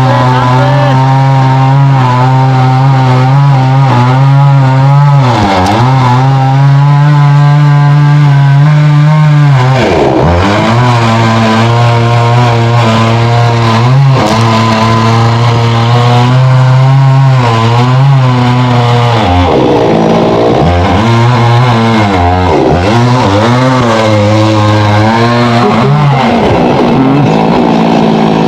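Chainsaw engine running at high speed, its pitch dipping sharply and recovering several times, most often in the last third.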